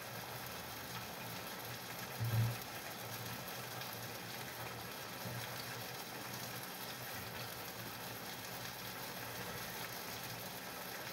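Steady sizzling hiss of food cooking in a pan on a gas stove. A brief low hum about two seconds in.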